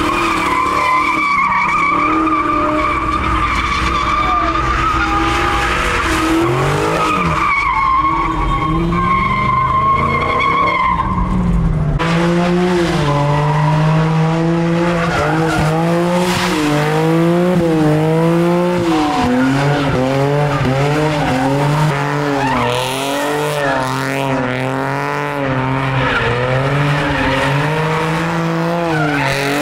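A car doing donuts: its tires squeal on the pavement with a steady high pitch. Partway through, the squeal gives way to the engine revving hard, its pitch wavering up and down with the throttle.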